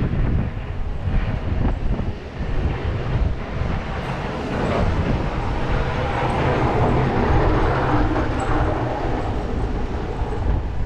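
Snowplow truck running and pushing snow aside: a heavy low rumble with a broad rushing noise that swells through the middle and eases near the end.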